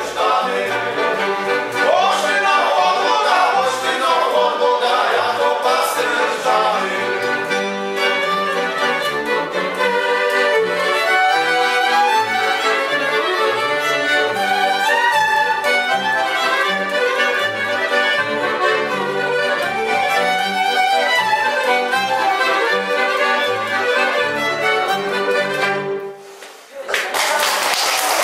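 Góral folk band of violin, accordion and double bass playing a lively tune over a pulsing bass line. The music stops about 26 seconds in, and applause breaks out near the end.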